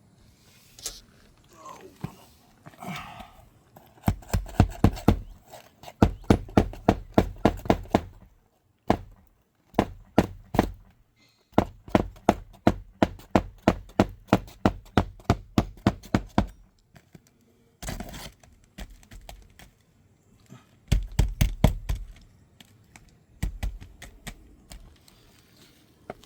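Hammer driving a roofing nail into an asphalt shingle, struck from an awkward angle under the shingle above: several runs of quick taps, about four a second, broken by short pauses.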